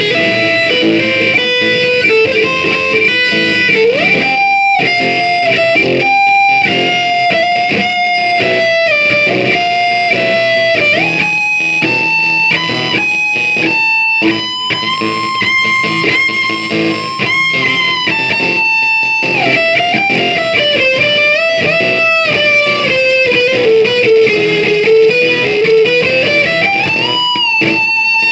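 Instrumental music led by electric guitar, the melody line bending and sliding in pitch over a steady band accompaniment.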